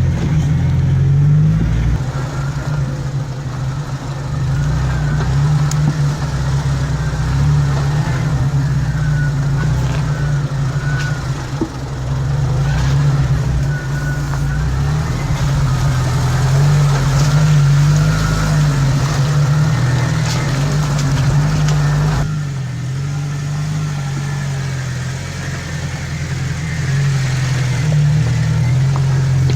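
Jeep Wrangler's engine running at low speed while it crawls a rough, rocky off-road trail, with a few light knocks from the rig. About three-quarters of the way through, the deep rumble drops off abruptly.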